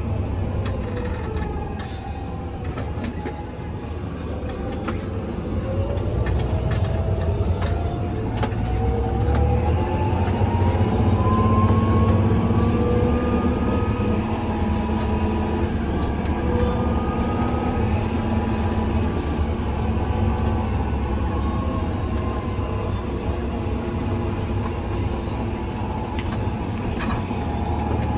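Tractor engine running while pulling a loaded manure spreader, its pitch climbing steadily from about five seconds in as it speeds up, then holding. Frequent rattles and clunks run over the engine sound.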